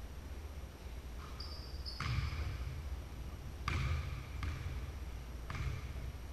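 Basketball bouncing on a hardwood gym floor: four uneven bounces in a large gym, with a brief high squeak about a second and a half in.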